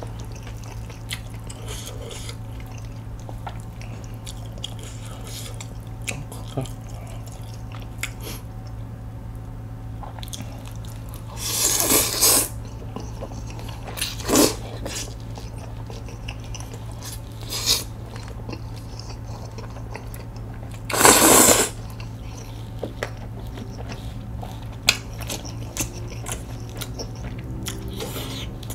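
Close-up eating sounds: chewing with small clicks and crunches from crispy fried dumplings and jjajang noodles. Two long loud slurps of noodles come about twelve and twenty-one seconds in, over a steady low hum.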